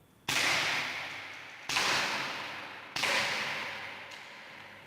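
Airsoft revolver being fired three times, a sharp crack about every second and a half, each trailing off over about a second.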